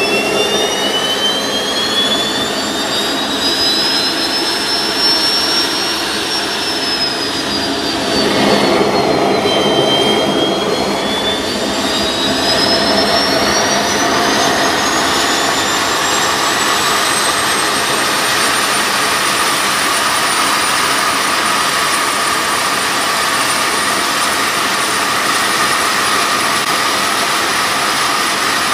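Homemade JU-01 gas turbine engine running with its high whine and a steady rush of air. The whine climbs for the first few seconds, dips briefly about a third of the way in, then climbs much higher and holds steady at high speed for the second half.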